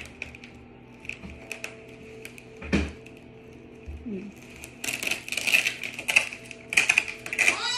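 Metal handle strap and fittings of a canvas laundry hamper clinking and rattling while being worked into place. There is a knock about three seconds in and a quick run of rattling clicks near the end.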